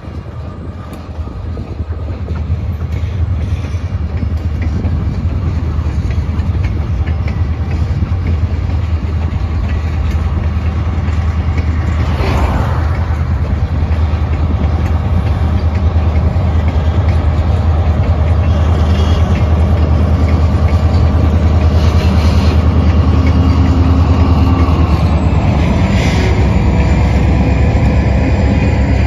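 Diesel-hauled freight train of tank cars rolling by on the Napoleon Defiance & Western, the locomotive's engine rumble growing steadily louder as the head end draws near and loudest near the end. A car on the road alongside passes about halfway through.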